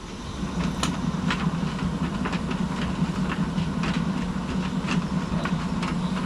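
AEG / Electrolux tumble dryer running, its drum turning: a steady motor hum with irregular clicks and knocks, building up over the first half second.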